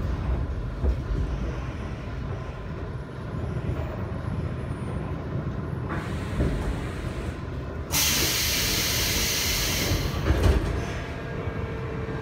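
Inside a Seoul Metro Line 1 electric train car coming to a stop: a low running rumble, then about eight seconds in a loud hiss of compressed air lasting about two seconds as the pneumatic system vents, followed by a knock as the doors slide open near the end.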